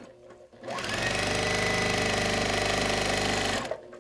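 Electric sewing machine stitching through layers of wool fabric: it starts up about a second in, runs at a steady speed with a rapid even needle rhythm, and stops shortly before the end.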